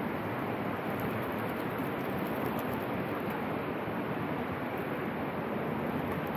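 Steady rushing of flowing river water around the kayaks, an even, unbroken noise.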